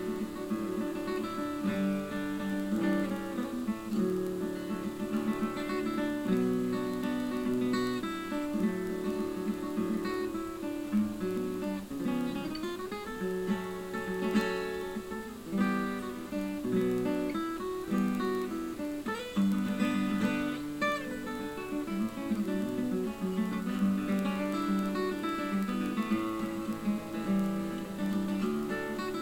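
Acoustic guitar instrumental, a tune picked on a steel-string guitar without singing.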